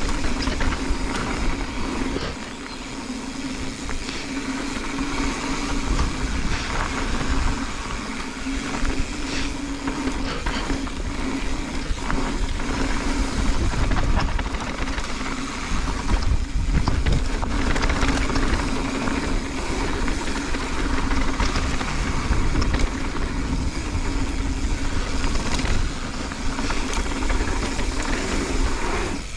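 Mountain bike descending a dirt and gravel trail at speed: tyres rolling over loose dirt with a steady rush, and frequent clicks and rattles from the bike over bumps, with wind buffeting the camera microphone.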